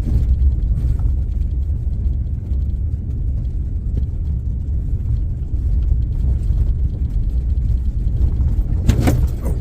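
A four-wheel-drive vehicle driving, with a steady low engine and road rumble. There is a short louder noise near the end.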